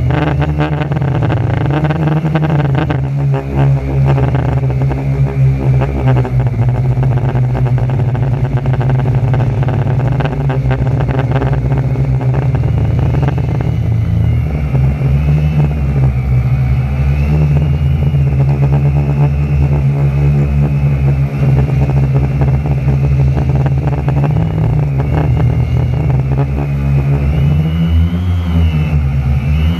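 Quadcopter's electric motors and propellers running in flight, heard from a camera on its frame: a loud, heavy low rumble with a whine that wavers up and down in pitch as the throttle changes, most clearly from about halfway through. Gusty wind adds to the rumble.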